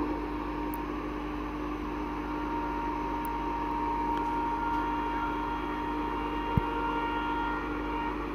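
A steady machine hum with two constant tones over a wash of noise, and a single sharp click about six and a half seconds in.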